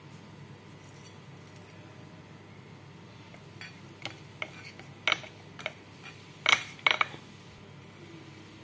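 Kitchen utensils clinking against dishes: a run of short, sharp clinks and taps starting about three and a half seconds in, with the loudest knocks close together near the end.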